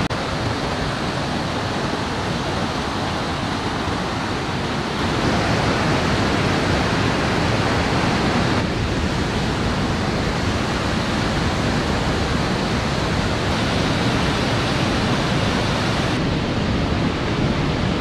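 Steady rushing of a large cascading waterfall, white water tumbling over boulders close by.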